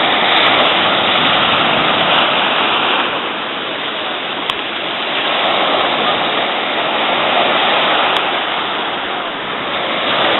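Loud, steady rushing and churning water, swelling and easing over a few seconds at a time.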